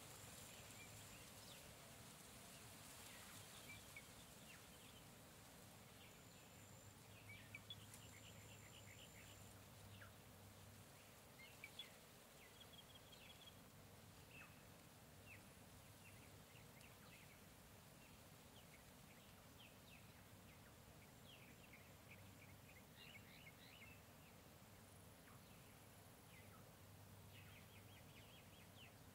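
Faint jungle ambience: scattered short bird chirps and calls over an even background hiss, with a thin high tone now and then.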